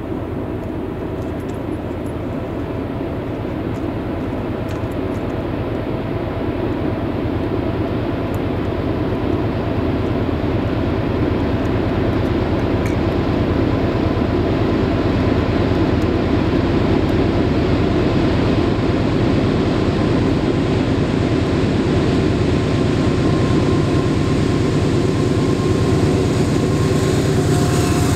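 Diesel locomotives of an approaching train running steadily, their engine note growing slowly louder.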